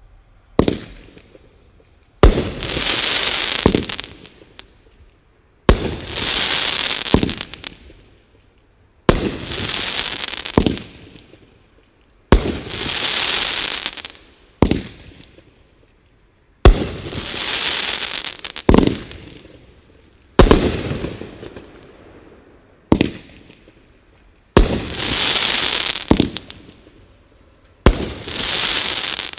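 A 'Cat Memes' 500-gram, 19-shot consumer fireworks cake firing about ten shots, two to four seconds apart. Each shot is a sharp thump, then a second or so of hiss, ending in a smaller bang.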